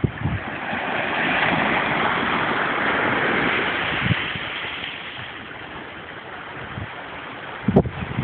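Small waves washing in over rocks and up a sandy shore: surf hiss that builds over the first second or so, stays strongest until about four seconds in, then fades. A few low bumps of wind on the microphone, the loudest near the end.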